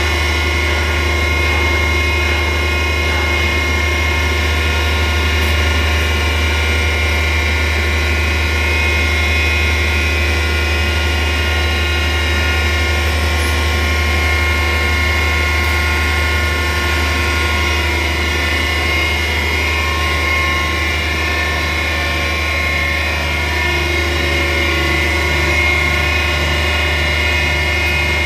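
Weinig Rondamat 980 CNC knife grinding machine running: a steady low hum with several steady higher tones over it, unchanging in level.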